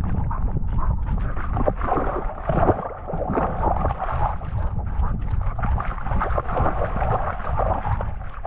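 Steady wind and movement rumble on a GoPro strapped to a running cocker spaniel, with the dog's panting and its paws crunching and splashing over wet gravel.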